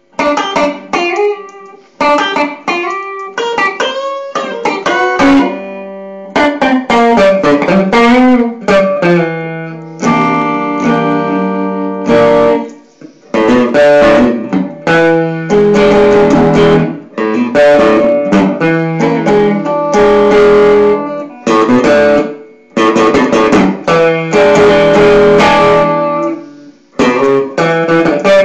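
Electric guitar played solo in a blues style: quick single-note runs and string bends in the first several seconds, then fuller chord passages with short breaks between phrases.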